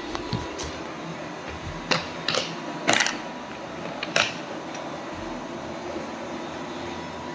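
Robot vacuum cleaner running with a steady motor hum and a thin whine, with a few short knocks and clicks between about two and four seconds in.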